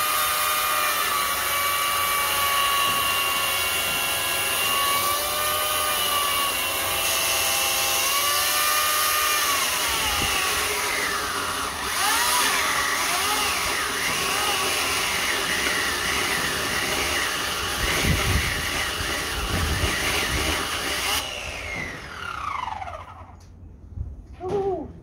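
Oregon CS1400 15-amp corded electric chainsaw running at full speed, a steady motor whine. From about ten seconds in the pitch sags and wavers as the chain bites into a log. Near the end the trigger is released and the motor winds down, falling in pitch.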